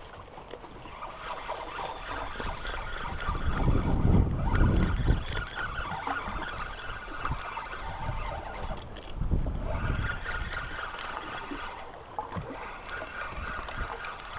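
Wind buffeting the microphone outdoors on open water: a low rumble that swells in gusts about four seconds in and again near ten seconds, over a steady background hiss.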